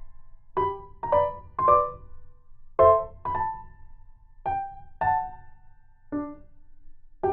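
Background music: a slow piano melody of single struck notes in short phrases of two or three, each note ringing and fading.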